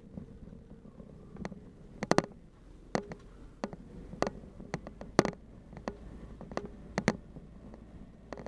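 Vehicle driving slowly over a rough dirt trail: a low engine hum with irregular sharp knocks and rattles as it goes over bumps. The loudest knocks come about two, five and seven seconds in.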